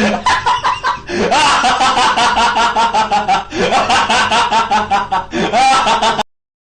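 Comedy laughing sound effect: a high-pitched cackling laugh in rapid pulses, in three or four long runs, cutting off suddenly near the end.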